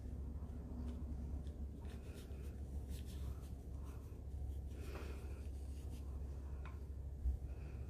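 Calligraphy brush loaded with ink drawing strokes across thin practice paper: faint soft brushing, over a steady low hum. A short low thump sounds near the end.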